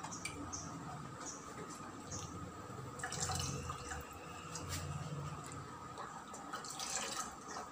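A spoon stirring a liquid mixture in a small stainless-steel saucepan: scattered light clinks and scrapes of the spoon against the pan, with soft wet, drip-like liquid sounds.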